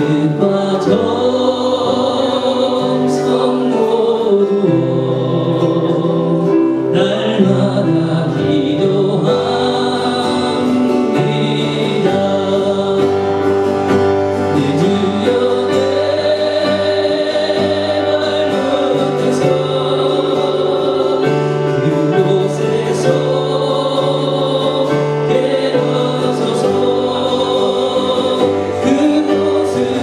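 A gospel worship song: a man singing while strumming an acoustic guitar, with other voices singing along.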